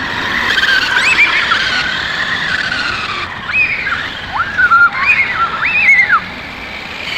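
Battery-powered remote-control toy cars' small electric motors and gears whining. The pitch swings up and down in several short surges as the throttle is pressed and let off, mostly between about three and six seconds in.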